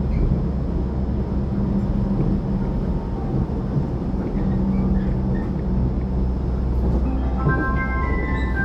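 Steady low rumble of a passenger train running, heard from inside the carriage. About seven and a half seconds in, a melody of several clear tones starts over it.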